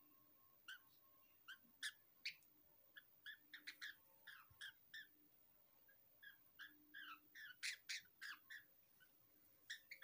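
Young lovebird giving a string of short, sharp squawks while held in the hand and having its wet wing feathers rubbed; the calls come in irregular clusters, thickest and loudest in the second half.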